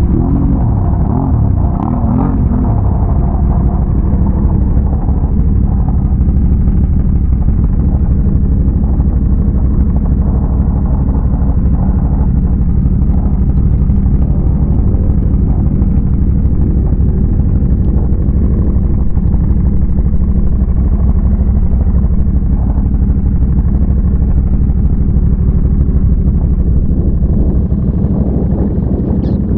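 Big-bore Can-Am Renegade ATV's V-twin engine running steadily while riding, a loud continuous low drone with small changes in throttle.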